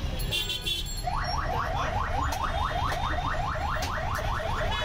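An electronic alarm sounding over a constant low street rumble. It starts about a second in as a fast run of rising chirps, about five a second.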